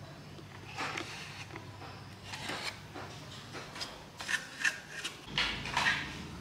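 A run of short scrapes and taps from hand work on the old electric fan's parts, the loudest near the end, over a low steady hum.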